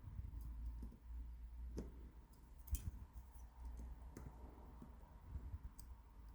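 Small metal clicks from picking an 8-pin tubular cam lock, the pins clicking as the tool works them and the core turns slightly under tension. About half a dozen sharp, irregular clicks, the loudest near the middle, over a low handling rumble.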